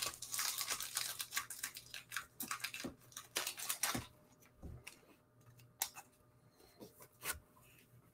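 Light scrapes and clicks of trading cards being handled, busy for the first four seconds, then a few scattered ticks.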